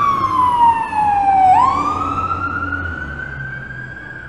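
Emergency vehicle siren in a slow wail. Its pitch falls for about a second and a half, sweeps quickly back up, then climbs slowly again, growing fainter toward the end over a low steady hum.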